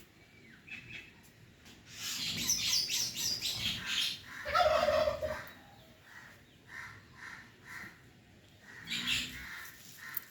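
Birds calling and chirping: a busy burst of chirps about two seconds in, a louder, lower-pitched held call near the middle, then a run of short, evenly spaced notes and another burst of chirping near the end.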